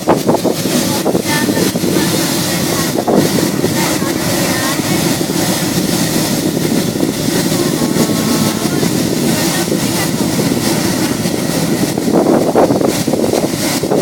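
Diesel locomotive engine running steadily while the locomotive stands at the platform, a dense low drone without let-up.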